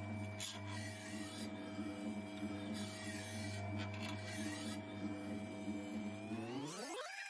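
Electric sharpening machine's motor humming steadily while the chipped edge of a Baccarat Damashiro Damascus knife is ground on the spinning wheel, with light rasping of steel against the wheel. Near the end the hum sweeps sharply upward in pitch.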